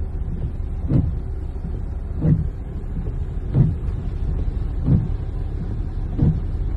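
Road vehicle running through heavy rain and floodwater: a steady low rumble with a regular swell about every second and a third.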